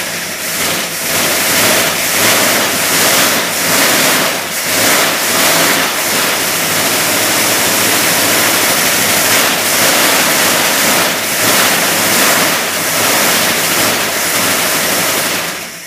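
Chrysler 273 cubic-inch small-block V8 running loud and rough after years standing, its noise surging and falling unevenly. The carburettor air intake is partly covered by hand to choke it, on a temporary funnel fuel feed.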